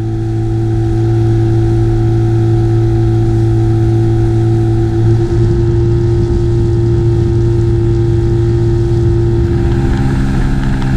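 Outboard motor of an inflatable boat running at a steady cruising speed, a constant hum with a slight change in tone near the end.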